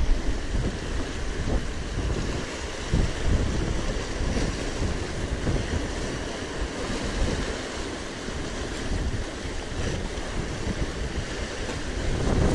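Wind buffeting the microphone in gusts, over the steady wash of sea surf.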